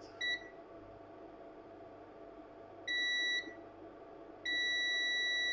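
Digital multimeter's continuity beeper sounding as the probes touch a motherboard power rail. There is a short blip near the start, a half-second beep about three seconds in, and a long steady beep from about four and a half seconds on. The beep signals a short to ground on the rail.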